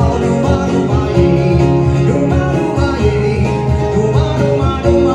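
A Vietnamese pop song played back through a Bang & Olufsen wireless speaker during a sound test: steady instrumental music with a regular beat.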